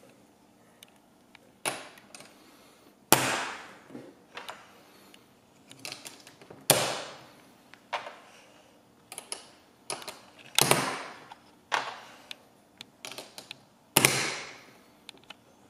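Snap Circuits Jr. snap bars being snapped into place on the clear plastic base grid. A string of sharp plastic clicks and snaps, four or five loud ones a few seconds apart, with lighter taps and rattles of the parts between them.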